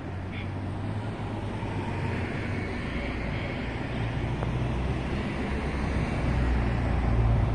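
Road traffic on the street beside the tram tracks: a steady low rumble of car engines and tyres that grows gradually louder.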